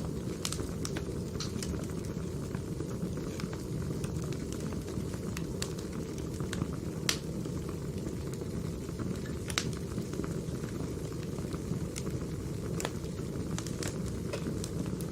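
Wood fire burning, with a steady low rumble and irregular sharp crackles and pops, two of them louder about seven and nine and a half seconds in.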